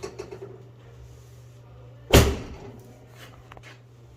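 Chiropractic adjustment: one sharp, loud thud about two seconds in as the adjustment thrust goes in, with a quick run of faint clicks at the start and a few soft knocks afterwards over a steady low hum.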